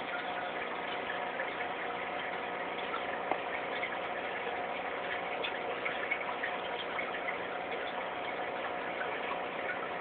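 Aquarium air stone bubbling steadily, with scattered fine crackles over a steady hum.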